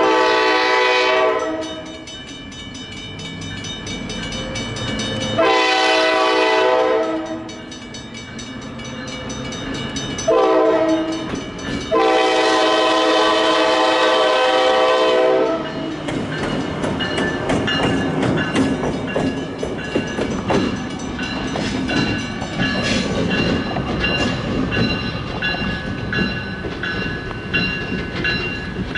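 Diesel locomotive air horn sounding the grade-crossing signal: long, long, short, long. After the last blast the locomotive rumbles by with wheels clattering over the rails and a steady high ringing.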